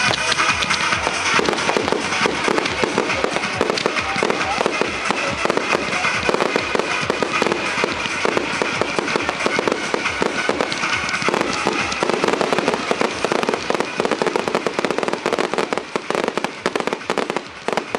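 Professional display fireworks going off in a dense, continuous barrage of rapid bangs and crackling, thinning a little near the end.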